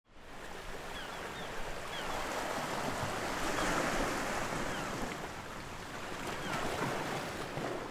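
Sea waves washing against rocky cliffs, a steady rushing that fades in at the start and swells about four seconds in. A few faint short chirps sound over it.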